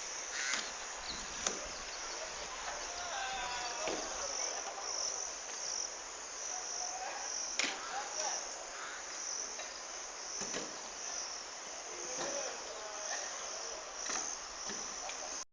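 Insects chirping outdoors in a steady, high, pulsing trill, with faint bird calls and a few short knocks.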